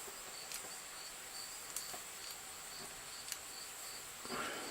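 Faint handling of a padlock and its keys: a few small sharp clicks and a brief rustle near the end, over a steady high hiss with a faint pulsing chirp.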